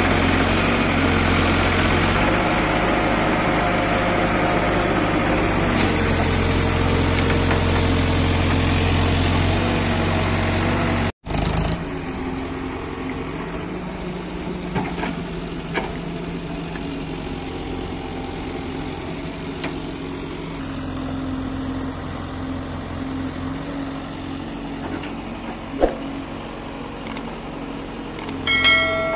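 Diesel engine of a Case 851EX backhoe loader running steadily under load as it digs and loads soil. It runs louder for about the first eleven seconds, cuts out for an instant, then runs quieter. A short ringing tone sounds near the end.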